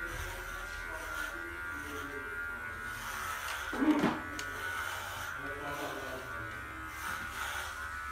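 Cordless electric pet clipper running with a steady buzz as it shaves a pug's coat. A brief, louder, low-pitched sound cuts in about four seconds in.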